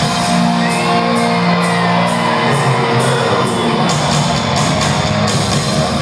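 Live hard-rock band playing the closing bars of a song: held electric guitar chords under repeated drum and cymbal hits, with the crowd shouting over it.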